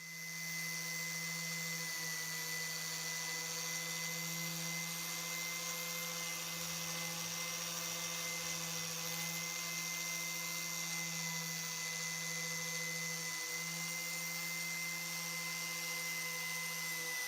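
Small electric power tool running at a steady speed, a constant hum with a high whine.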